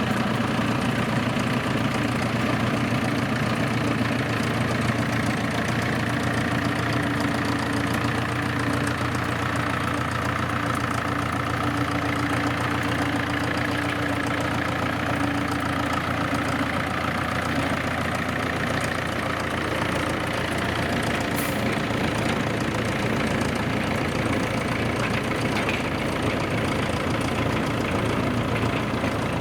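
Engine of a forest railway's small diesel locomotive running steadily, with a brief click about twenty seconds in.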